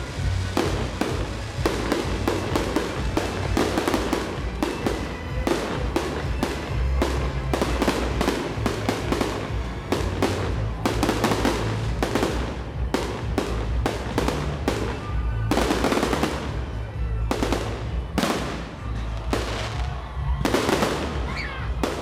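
Fireworks display: a rapid, continuous barrage of aerial shell bursts and crackling stars, several bangs a second with no pause.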